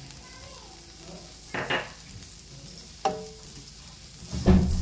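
Wooden spatula stirring grated coconut, onion, green chillies and garam masala roasting in a little oil in a pan, over a low, steady sizzle. Three sudden knocks break in, the loudest and dullest near the end.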